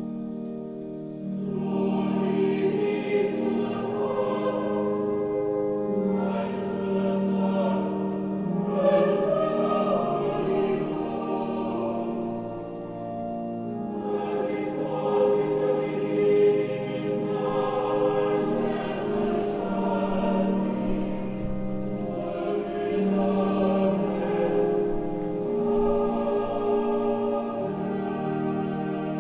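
Choir singing slow, sustained phrases, with short breaks between them.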